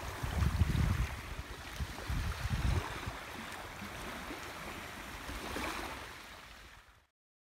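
Wind buffeting the phone's microphone in two strong gusts, about half a second in and about two seconds in, over the steady wash of calm sea at the shoreline; everything cuts off about seven seconds in.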